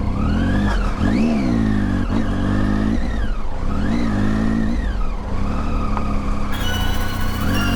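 Motorcycle engine revving, its pitch rising and falling several times, about once every second and a half.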